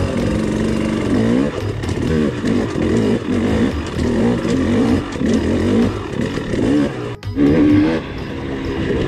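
Dirt bike engine revving up and down while climbing over rock ledges, its pitch rising and falling again and again. It breaks off briefly about seven seconds in.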